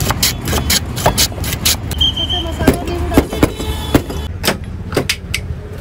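Busy street ambience: a steady low rumble of traffic under scattered voices, with many sharp clicks and knocks throughout and a brief high tone about two seconds in.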